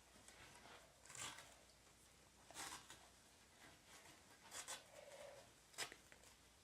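Black grip tape being pulled off the roll and wound tightly around a hockey stick shaft: four faint, short tearing rasps a second or two apart.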